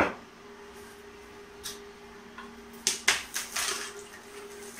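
A metal spoon clinks against an aluminium pressure cooker pot once at the start. After a quiet stretch over a faint steady hum, two more clinks come about three seconds in, followed by the spoon scraping as it stirs the pea and potato gravy.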